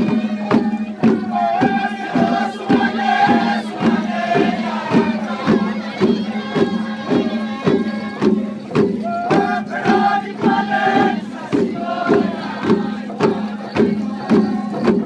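Siassi traditional dance group singing a chant-like song together, over hand drums beaten in a steady rhythm of about two beats a second.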